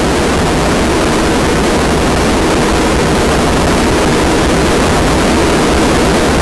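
Harsh noise music: a loud, dense, unchanging wall of noise with no rhythm or pitch, heaviest in a low rumble and the lower-middle range.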